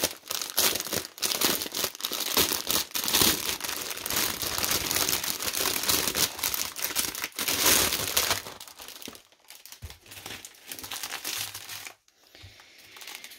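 Plastic crinkling and rustling as hands handle a shrink-wrapped stack of diamond-painting drill bags. The sound is dense for about the first eight seconds, then thins to scattered crackles and fades near the end.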